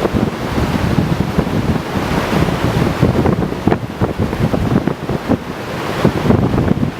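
Heavy wind buffeting the microphone: uneven low rumbling gusts over a broad, steady rush of noise.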